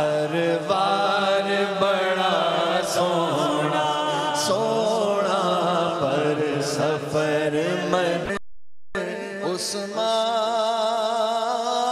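A man singing a Punjabi naat about the journey to Madina into a microphone, in long drawn-out melismatic notes. The sound breaks off completely for a moment a little past eight seconds.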